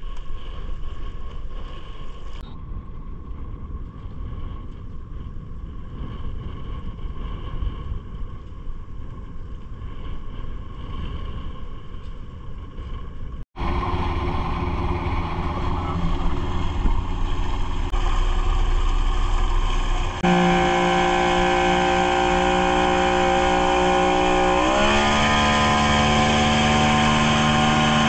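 Yamaha 70 hp outboard motor running under way, with water rushing from the wake. After a quieter low rumble in the first half and a sudden cut, the motor is louder; about two-thirds of the way in its note steps up, and near the end its pitch rises quickly to a higher steady note as the throttle opens.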